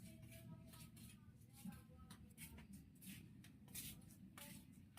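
Faint, irregular scraping and light clicks of hands handling small engine parts and tools, with no engine running.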